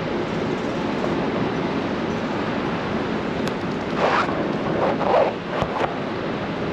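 Steady roar of city street traffic beside an open excavation site. Between about four and six seconds in there are a few sharp clicks and three short, louder bursts of noise.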